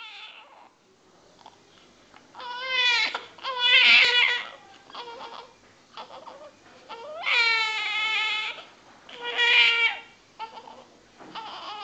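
Two-day-old newborn baby crying: four loud, high-pitched wails, the longest about seven seconds in, with quieter whimpering and catching breaths between them.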